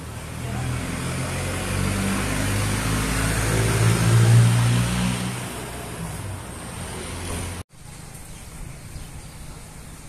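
A motor vehicle passing by: engine hum and road noise swell to a peak about four seconds in and then fade. The sound cuts off suddenly near the end, leaving faint background noise.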